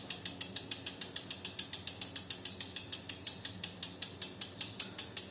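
Road bike's rear freehub ratcheting while freewheeling: a steady, even clicking of the pawls, about nine clicks a second.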